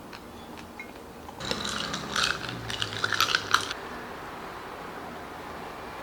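A brief rattling and clinking of small hard objects, a quick run of clicks lasting about two seconds.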